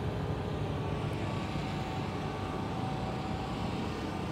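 Steady low rumble of a running engine, with a faint steady tone above it.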